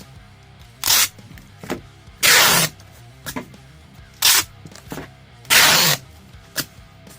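Packing materials handled while an order is packed: four loud, rasping noises, the second and fourth about half a second long, with a few small clicks between. Quiet background music plays under them.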